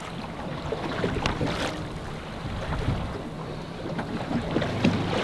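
Wind buffeting the microphone over choppy sea water lapping around a small open boat, a steady noise with scattered small knocks.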